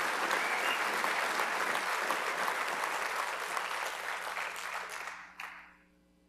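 Audience applauding, the clapping slowly fading and dying away about five seconds in, with a last clap or two at the end.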